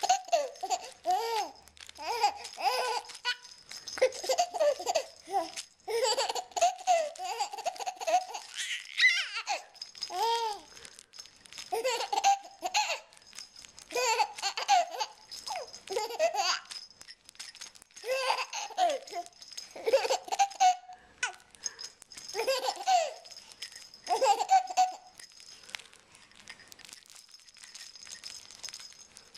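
A baby laughing in repeated bouts of short, pitched bursts, with brief pauses between bouts and the laughter growing sparser near the end.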